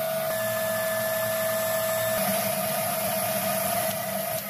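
KitchenAid Artisan stand mixer motor running steadily with a whine while its beater works flour into a soft bread dough. About two seconds in the pitch steps up slightly as the speed lever is pushed up, and at the very end the motor winds down.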